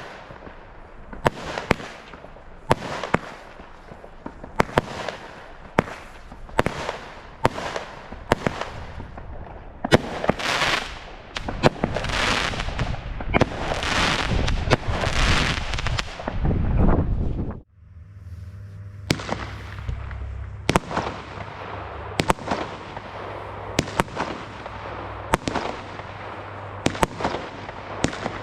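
Nico Sky Explorer consumer firework battery firing shot after shot, with a bang every second or so, then a run of longer, swelling crackling bursts. About two-thirds of the way through it cuts off abruptly and a Weco Gargoyle battery starts, with sharp bangs about once a second over a low hum.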